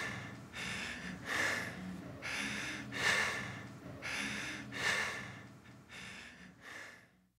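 A man breathing hard, out of breath after dancing: loud breaths in and out following each other just under a second apart, growing fainter over the last couple of seconds and stopping shortly before the end.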